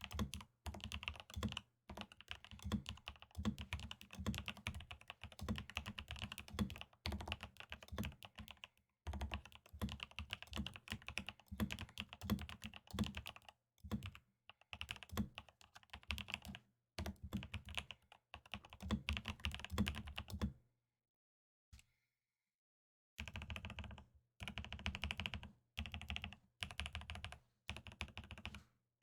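Typing on a RAMA KARA SEQ1 mechanical keyboard: an ABS case and polycarbonate plate, Tangerine 67g switches with Kailh Pro Burgundy stems lubed with Krytox 205g0, and dye-sub PBT Cherry-profile keycaps. The keystrokes come in quick runs broken by short pauses. A pause of about two seconds comes roughly two-thirds of the way in, with one lone keystroke.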